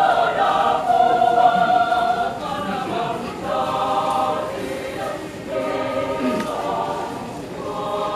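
Choir singing a Christian sacred song in harmony, several voice parts holding chords that shift every second or so.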